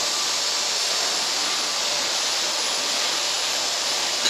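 Steady rushing hiss at an even level throughout, with a short click near the end.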